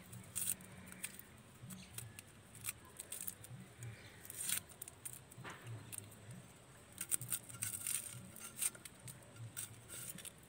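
A red onion being peeled by hand and sliced on a boti, a curved blade fixed upright on a wooden base: irregular crisp snicks of the blade and tearing of the papery skin, faint.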